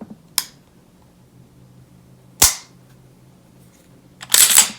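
Nighthawk Custom Sand Hawk, a compensated 9mm 2011 pistol, firing: a short crack just after the start, a sharp single shot about halfway through, and a longer, louder report near the end.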